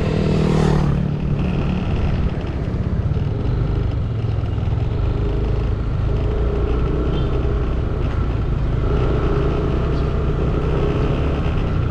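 Street traffic: cars and motorcycles running past over a steady low rumble, one passing close with a falling pitch right at the start.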